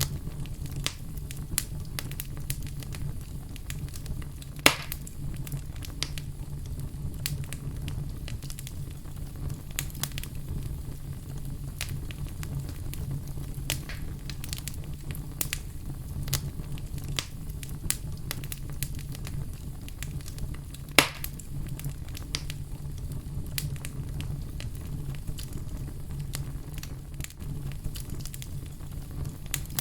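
Fire in a fireplace crackling, with many small snaps over a steady low rumble. Two loud sharp pops stand out, about five seconds in and about twenty-one seconds in.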